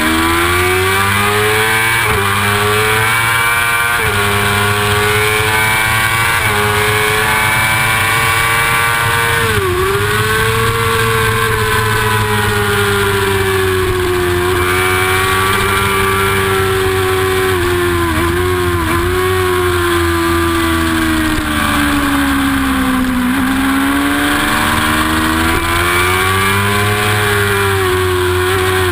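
Yamaha R6 600cc inline-four racing engine heard onboard at high revs, with wind rush on the microphone. The revs climb through quick upshifts at the start, drop sharply about a third of the way in under braking and downshifts, dip twice more around two-thirds in, sink through a corner and climb again near the end.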